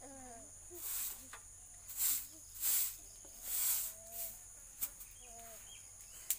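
A short grass broom sweeping a packed-earth floor in four swishing strokes over the first four seconds, with crickets trilling steadily throughout. A faint voice comes and goes, and there is a sharp tap near the end.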